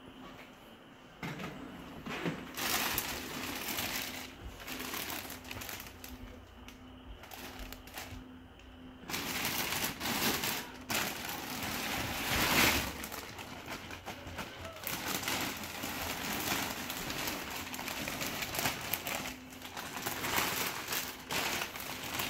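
Clear plastic wrapping around a large stuffed toy crinkling and rustling as it is handled, on and off, heavier from about nine seconds in.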